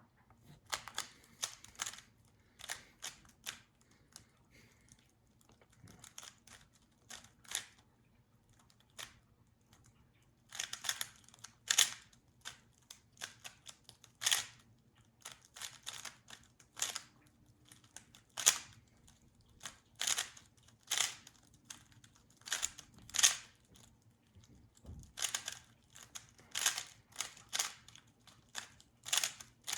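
Rubik's cube being turned fast in a speedsolve: plastic layers clicking and clacking in quick irregular clusters, with short pauses between runs of turns.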